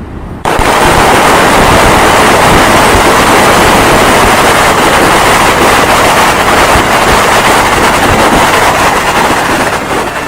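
Loud, steady rushing noise played back as a stage sound effect; it starts abruptly about half a second in and fades just before the music begins.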